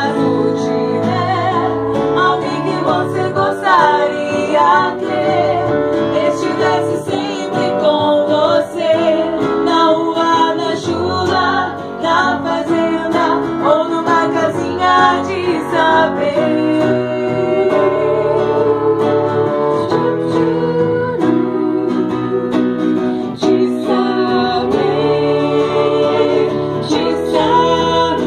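Women's voices singing a song in harmony into microphones, accompanied by a live band on keyboard, guitar and drums.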